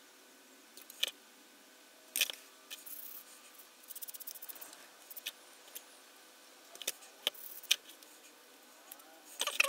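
Small clicks and taps from a plastic model aircraft kit and its parts being handled on a cutting mat, with a quick run of ticks about four seconds in and a cluster of clicks near the end.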